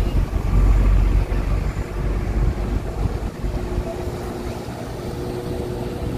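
Wind buffeting the microphone, heaviest in the first two seconds, over the steady drone of a small boat's engine out on the harbour.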